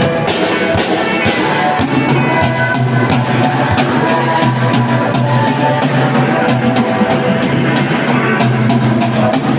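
Live rock band playing, drum kit and electric guitars, with steady drum hits over sustained guitar and bass notes.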